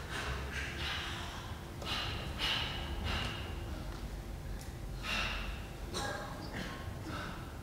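Dancers moving and breathing on a stage: a few short, breathy bursts of noise over a low, steady room rumble.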